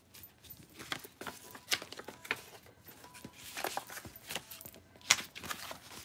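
Stack of paper cards being shuffled and handled by hand: irregular soft flicks and paper rustles.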